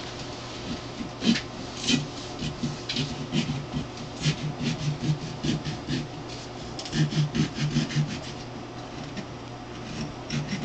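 A kitchen knife sawing into the rind of a whole watermelon: a run of short, quick cutting strokes, coming thickest in the middle of the stretch.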